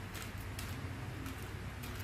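Plastic clicking of a 4x4 Rubik's cube being turned rapidly through the edge-parity algorithm, with irregular quick clicks over a low steady hum.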